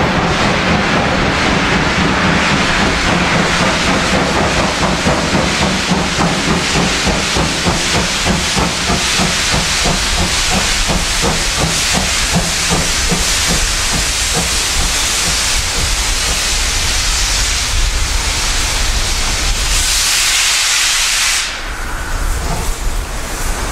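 DR class 50 two-cylinder 2-10-0 steam locomotive 50 3648 approaching under hard steam, its exhaust beating fast and regularly with dense black smoke from the chimney. Near the end a loud hiss of steam lasts about a second and a half and cuts off abruptly.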